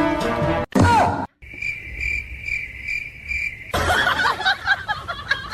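Cricket chirping: a high, even chirp repeated about twice a second for a couple of seconds, the stock 'crickets' gag sound. It follows a brief burst of music and gives way near the end to a busy mix of gliding sounds from the next clip.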